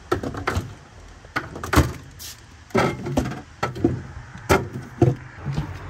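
Plastic Gatorade bottles knocking and clunking as they are set one after another into a mini fridge's door rack and onto its shelves, a dozen or so uneven knocks.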